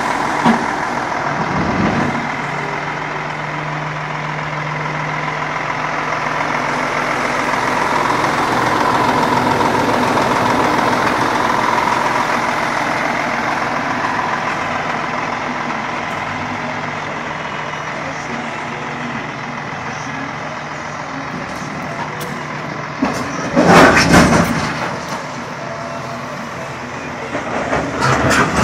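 Mercedes-Benz Axor 3340 truck's diesel engine idling steadily, with two brief loud hissing bursts from the air system about 23 and 28 seconds in.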